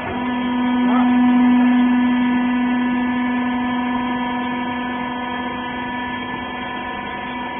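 Rags baler's hydraulic pump motor running with a loud, steady hum that swells up at the start, peaks about a second in, and eases slowly toward the end.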